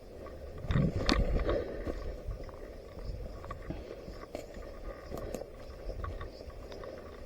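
Rustling and handling noise with a steady low rumble, broken by a few scattered sharp clicks and taps, the loudest cluster about a second in.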